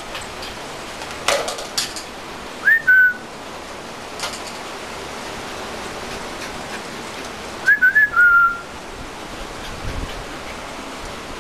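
Short, high squeaks in two loud bursts over a steady hiss: one squeak, then two or three in quick succession about five seconds later, with a few light clicks between them.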